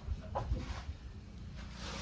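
A single light knock about a third of a second in, over a low, steady background hiss, typical of a tool or engine part being set down during engine assembly.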